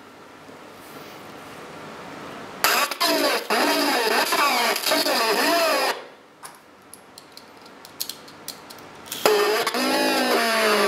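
Skinned Furby talking through a grafted-on voice transformer: two bursts of distorted Furby chatter with wobbling pitch, one about three seconds in and one near the end, with faint clicking from its gear mechanism in between. A hiss rises before the first burst.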